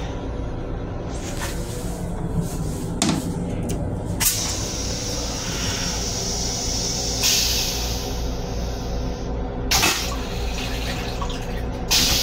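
Train toilet flushing: a hiss of rinse water spraying into the stainless steel bowl starts sharply about four seconds in and runs for about five seconds, louder near the end. Several sharp clicks come along the way, over a steady low rumble.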